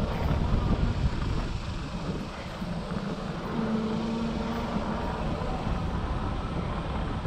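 Low, fluctuating rumble of wind buffeting the microphone as the camera is carried along a dirt trail, with a faint steady drone in the middle.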